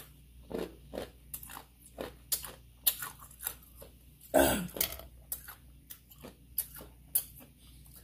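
A person chewing spicy instant noodles and fried chicken close to the microphone, with many short wet mouth clicks and smacks. One louder throaty breath or vocal noise comes about four and a half seconds in.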